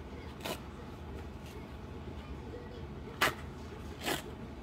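Letter paper rustling as it is handled and unfolded: three short swishes, the second the loudest, over a steady low hum.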